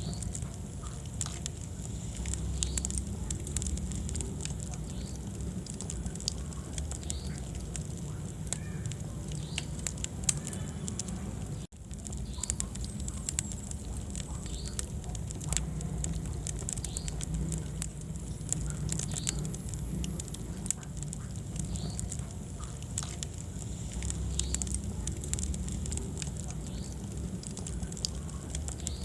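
Wood fire burning in a fireplace: a steady low rumble of flames with frequent sharp crackles and pops. The sound cuts out for a moment about twelve seconds in.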